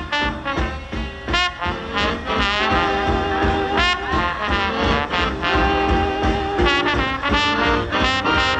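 Swing-style big-band music with brass, trombones and trumpets playing a melody over a steady beat.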